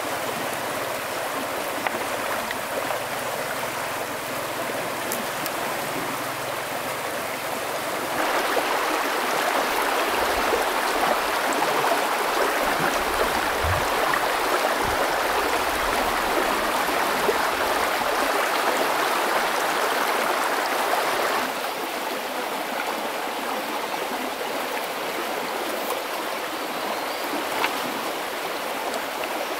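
Stream water flowing over rocks, a steady rushing noise that grows louder about eight seconds in and drops back about two-thirds of the way through.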